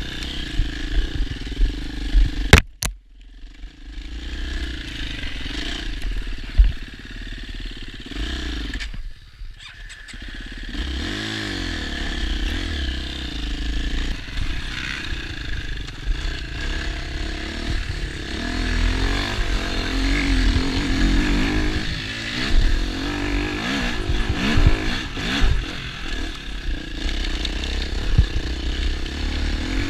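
New KTM EXC enduro motorcycle's engine, being run in, ridden along a trail with the revs rising and falling with the throttle. A sharp knock comes about two and a half seconds in, and the engine falls back almost to idle just after it and again around nine seconds in.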